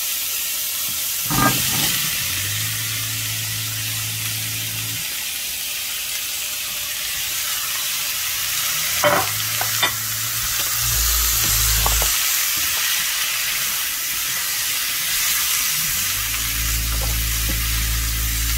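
Leeks, bell pepper and garlic sizzling in olive oil in a skillet on medium-high heat, stirred with a silicone spatula. A few knocks come as sliced yellow squash and zucchini go into the pan, and the sizzle carries on as they are stirred in. A low hum comes and goes underneath.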